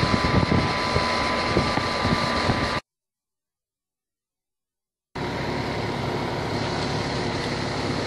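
Goodman air conditioning condenser fan running with a steady whir and faint steady tones, with a few low thumps near the start; it cuts off abruptly about three seconds in. After two seconds of silence, a new microchannel condenser unit's fan is heard running steadily.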